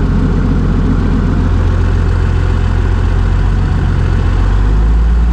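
Old semi truck's diesel engine running steadily at idle after being revived from years of sitting.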